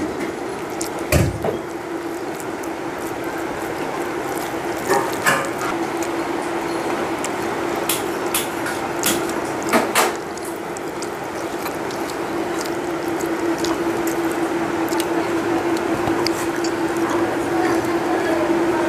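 Eating by hand from a steel plate: fingers mixing rice, mouth sounds and occasional sharp clicks against the plate. A steady hum runs underneath.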